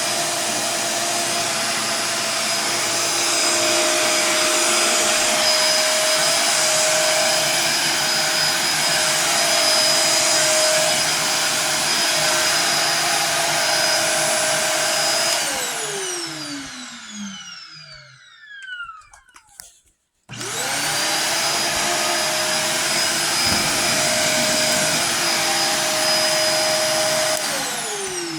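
Shark vacuum cleaner running on carpet with a steady motor whine. About fifteen seconds in it is switched off and winds down with a falling whine, goes silent briefly, then is switched back on and spins up quickly. Near the end it is switched off again and starts winding down.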